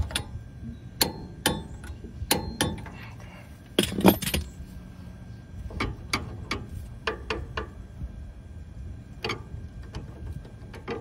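Socket ratchet clicking in short, irregular strokes with metal clinks, tightening a fastener on a newly fitted power steering box. A louder clank comes about four seconds in.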